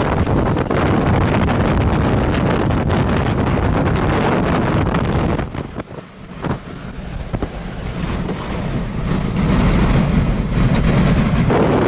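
Hurricane-force wind blasting across the microphone in a dense, rushing noise. It drops off abruptly about halfway through, then builds back to full strength over the next few seconds.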